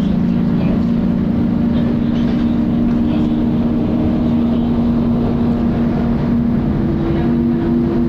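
Volvo B10BLE bus running with its very loud cooling fan, a steady drone of low hum tones over the diesel engine's rumble; one tone shifts up slightly near the end.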